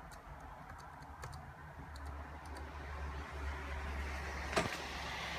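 A few computer keyboard key clicks, then the HP Z400 workstation's fans spin up and settle into a steady whir with a faint whine. A sharper key click comes about four and a half seconds in.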